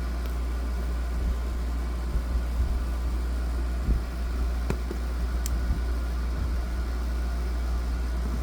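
Steady low hum of a running refrigerator, with a few faint clicks near the middle.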